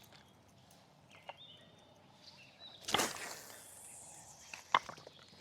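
A fishing rod cast with a spinning reel: a sudden swish about three seconds in that fades over the next couple of seconds, then a sharp click near the end.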